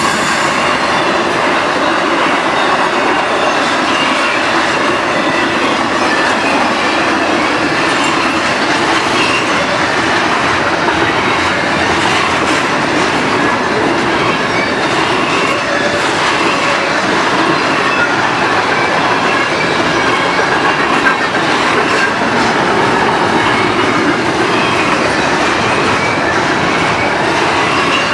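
Double-stack intermodal freight train cars rolling past: a steady, loud rolling noise of steel wheels on rail, with a faint high-pitched wheel squeal wavering in and out.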